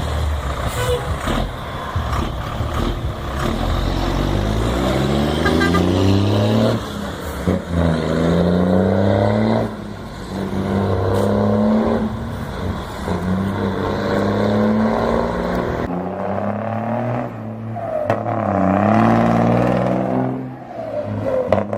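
Iveco truck's turbo diesel engine pulling up through the gears. Its pitch climbs and falls back at each shift, several times over.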